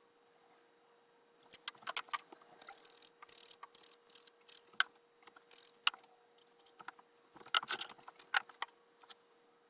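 Scattered light clicks, taps and knocks from a small wooden drawer and flocking tools being handled, with a short stretch of soft hiss about three seconds in, over a faint steady hum.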